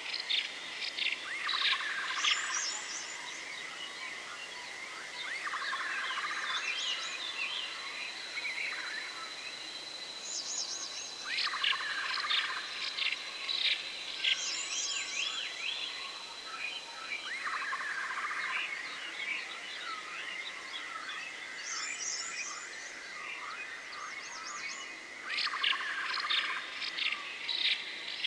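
Forest ambience: many birds chirping and trilling throughout, over a steady high tone.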